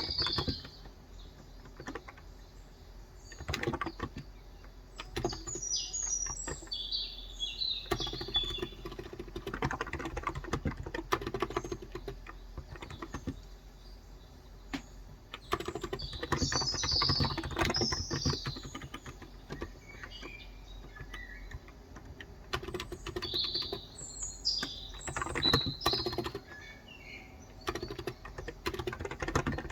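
Typing on a Cox Endeavor electro-capacitive (non-contact, 35 g) tenkeyless keyboard, in runs of rapid keystrokes broken by short pauses. Small birds chirp and sing in several bursts over it.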